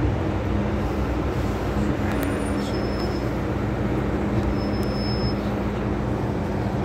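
MTR M-Train electric multiple unit running, heard from inside the carriage: a steady rumble of wheels and running gear under a low steady hum. Two brief high-pitched squeaks come about two and a half seconds and about four and a half seconds in.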